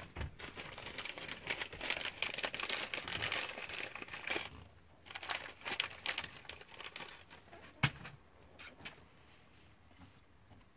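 Crinkling and rustling of plastic-insulated wires being handled, with scattered clicks and one sharp knock about eight seconds in.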